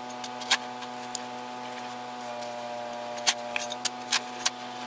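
Shovel blade digging into soft soil: a few sharp clicks and scrapes as it strikes and cuts the ground, most of them near the end. A steady hum runs underneath.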